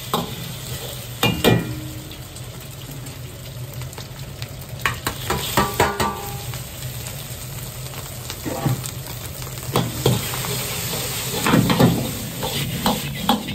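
Egg sizzling in hot oil in an iron wok, with a metal ladle scraping and knocking against the pan as rice is added and stir-fried for fried rice. Clusters of sharp clanks come about a second in, around the middle and near the end, over a steady low rush.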